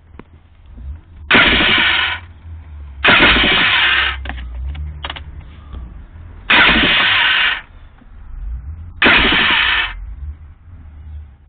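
1989 Kawasaki 650SX stand-up jet ski being cranked on its electric starter four times, each press giving a burst of about a second that stops abruptly, with no start. The owner describes it as turning over once and then making a weird electrical noise, a starting or electrical fault he cannot place.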